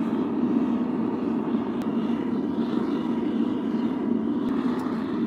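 Gas burner of a homemade keg foundry furnace running with a steady, low rushing noise, freshly lit and firing into the furnace.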